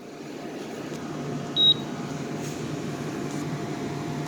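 Fedders 10,000 BTU window air conditioner with only its blower fan running, a steady whir with a low hum that builds a little over the first second. The compressor is not running, and the owner suspects the fan motor's bearings are a little bad. About a second and a half in, the control panel gives one short high beep.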